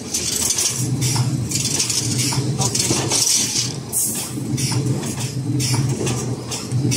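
CNC wire bending machine running through its bending cycles: a motor hum that starts and stops in stretches of a second or two, with repeated hissing swishes and light metallic clinks of the wire.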